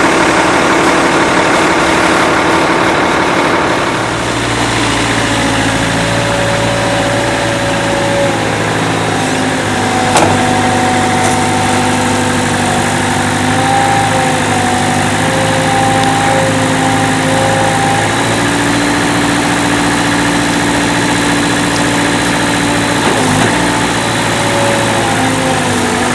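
A heavy work vehicle's engine idling steadily, its pitch shifting slightly a few times, with one sharp click about ten seconds in.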